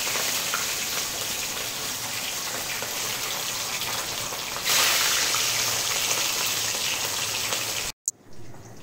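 Hot oil sizzling steadily as fish pieces fry in a steel kadhai; the sizzle turns suddenly louder about halfway through as another raw piece of fish is slid into the oil. It cuts off abruptly near the end, followed by a brief click.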